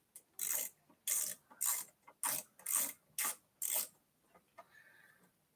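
Hand ratchet wrench clicking in about eight short strokes, roughly two a second, as a bolt on an e-bike's handlebar stem is turned. The strokes stop about four seconds in, leaving only faint handling noise.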